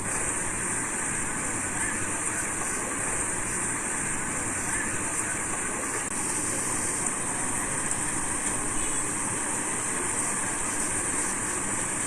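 Steady street noise with road traffic and a constant high hiss, with no distinct events standing out.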